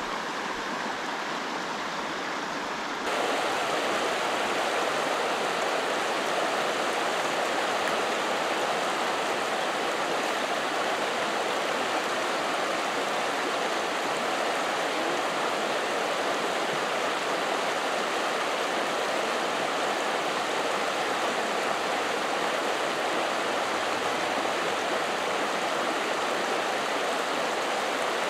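Creek water running over a shallow rocky riffle: a steady rushing that gets louder about three seconds in.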